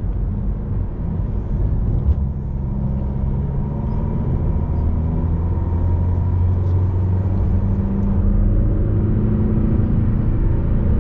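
Cabin noise of a Fiat Toro pickup driving at highway speed: the steady low drone of its 2.0 turbodiesel engine with road and tyre rumble, growing a little louder in the second half. A short knock about two seconds in.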